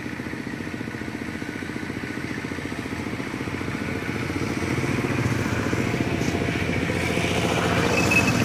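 Motorcycle engine running with an even pulsing, growing steadily louder from about three seconds in as it approaches.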